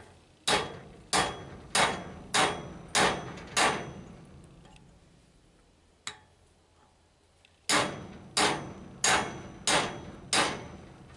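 Hammer blows on a cutter cutting through forge-heated scrap steel on an anvil, each blow with a short metallic ring. Six blows about a second and a half apart in total run, a few seconds' pause, then five more at the same steady pace.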